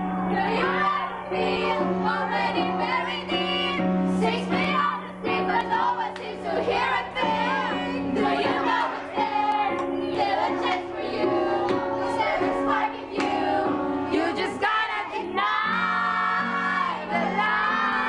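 Young voices singing together as a group over accompanying music with steady held notes.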